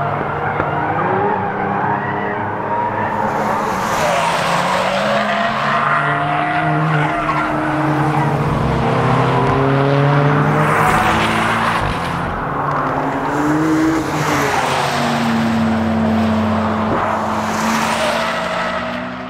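Several sports cars' engines and exhausts at track speed through a corner, their overlapping engine notes rising and falling as they pass. The sound fades away at the very end.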